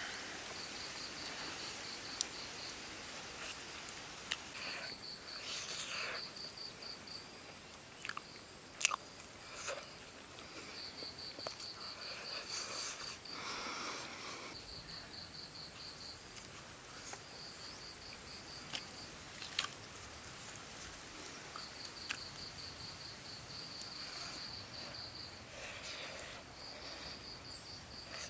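An insect, cricket-like, calling in a high pulsed trill in repeated runs of a second or two, over the wet clicks and smacks of someone chewing a soft grilled banana.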